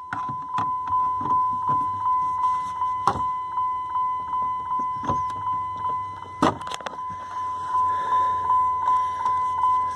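Dodge Ram 2500 truck's dash warning chime beeping in a rapid, even series. Clicks and knocks of pliers and the plastic instrument cluster housing being worked loose sound over it, the sharpest about six and a half seconds in.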